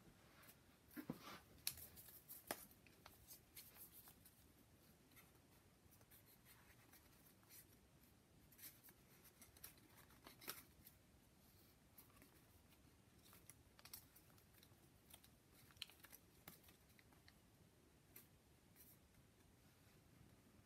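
Faint crinkling and rustling of folded paper units as they are slotted together into a modular origami ball, in scattered short clicks, busiest in the first few seconds.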